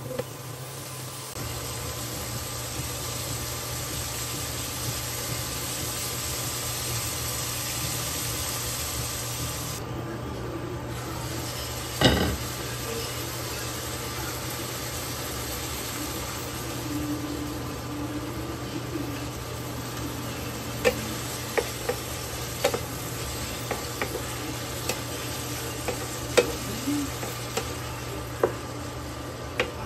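Sliced bitter gourd (ampalaya) sizzling in a nonstick frying pan while it is stirred and tossed with a wooden spatula. A single sharp knock about twelve seconds in, and frequent quick taps of the spatula against the pan in the last third.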